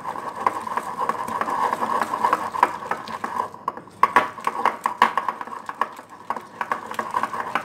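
Wire hand whisk beating a thick flour-and-water batter in a glass bowl: rapid scraping and clicking of the wires against the glass, with a short pause about three and a half seconds in.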